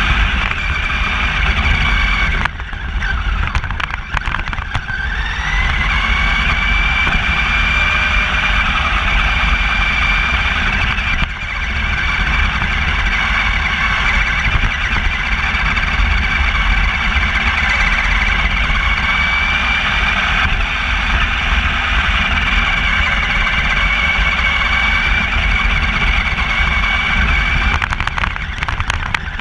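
Battery-powered RC car driving on the street, picked up by a GoPro mounted on its roof: a steady high electric-motor whine that rises in pitch about five seconds in and then holds, over a loud low rumble.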